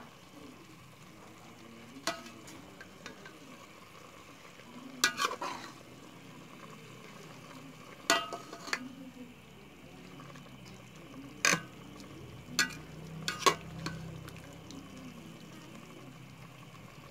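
Metal ladle stirring pork and kidney in a metal pot, with several sharp clinks and scrapes as it strikes the pot, over a faint steady simmer.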